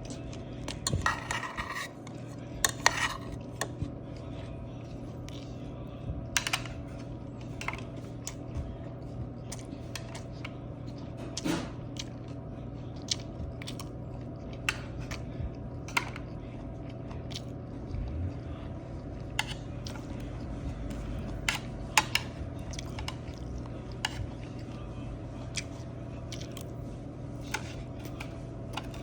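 Someone eating a takeout lunchbox meal: chewing, with scattered sharp clicks and taps of utensils against the food container, over a steady low hum.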